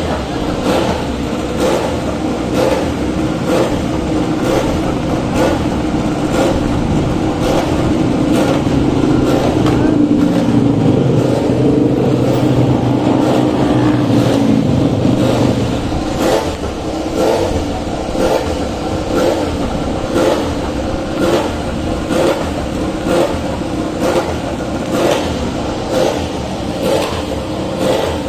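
Motorcycle engines running and revving, the pitch shifting about ten to sixteen seconds in, under a regular beat of about one and a half pulses a second.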